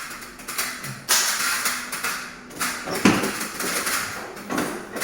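Plastic casing of a wall-mounted air conditioner being handled and worked loose: scraping and rustling in short spells, with one sharp knock about three seconds in.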